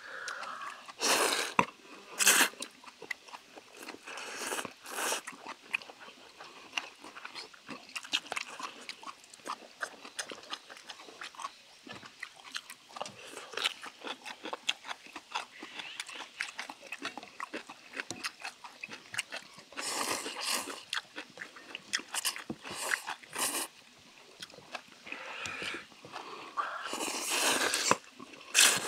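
Two people eating noodles with chopsticks, with several loud slurps of noodles and steady chewing and small mouth clicks in between.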